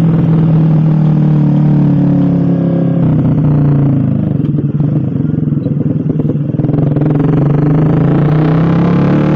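Suzuki GSX-R150 single-cylinder engine through an aftermarket SC Project-style (Purbalingga-made) exhaust, running steadily under way. About four seconds in the revs drop as the throttle eases off, and from about seven seconds they climb again.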